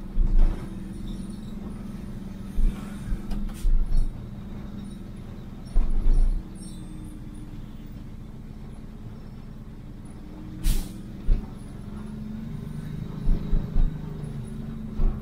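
Vehicle engine running steadily on a downhill mountain road drive, with repeated low thumps and a sharp knock about ten and a half seconds in.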